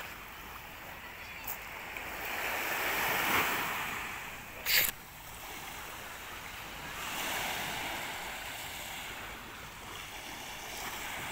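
Small waves breaking and washing back over a pebble beach, the wash swelling twice, with one short, sharp noise about five seconds in.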